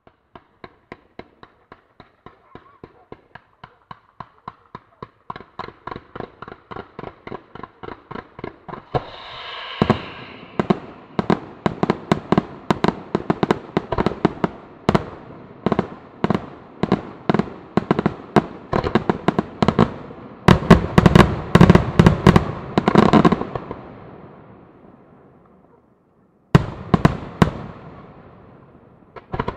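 Aerial fireworks display: an even, rapid run of bangs, about three a second, growing steadily louder, then heavier shell bursts with crackle that build to a dense, loud barrage before dying away. After a short pause, a fresh run of bangs starts near the end.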